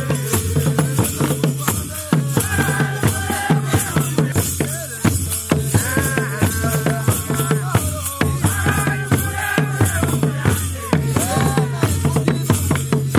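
Traditional Rwandan drumming with group singing: deep drum strokes on a steady beat under a chorus of voices.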